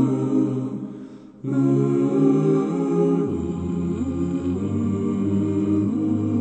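A vocal quartet singing held hymn chords without words, as an introduction. The chord fades out about a second in, and the voices come back in strongly about half a second later.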